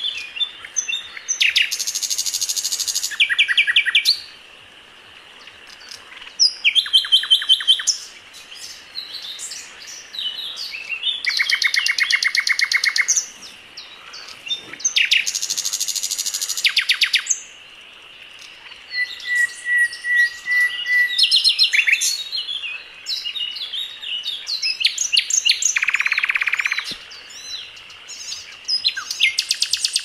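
Songs of several different songbirds mixed together in a combination bird-song master track. Loud rapid trills of one to two seconds alternate with shorter chirps and whistles, with brief gaps between phrases.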